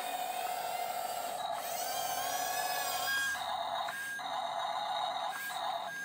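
Small electric gear motors of a toy RC tracked bulldozer whining as it drives, the pitch wavering and gliding as the speed changes. In the second half the whine cuts out and starts again several times, with a brief higher tone in each gap.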